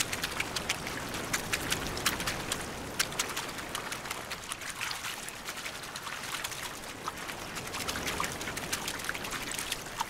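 A mass of Gulf grunion flopping and splashing in shallow wash on wet sand: many quick wet slaps and splashes over a steady rush of water.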